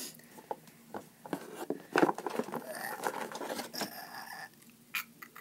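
Trading cards being handled and moved: a few light taps, then scraping and rustling of cards and card stock for a couple of seconds.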